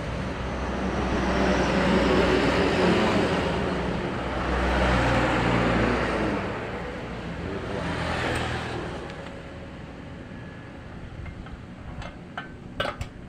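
Motor traffic passing, engine noise swelling and fading a few times before dying away, then a few light clicks near the end.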